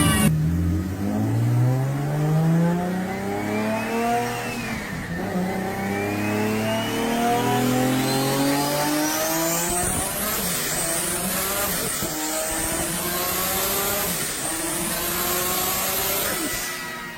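Nissan Skyline R34's engine under full load on a dynamometer: the revs climb steadily for about sixteen seconds with a high whine rising alongside, then the sound drops away near the end as the pull ends.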